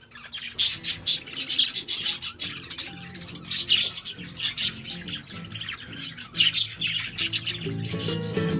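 Budgerigars chattering in a rapid run of short, high squawks and chirps, over background music.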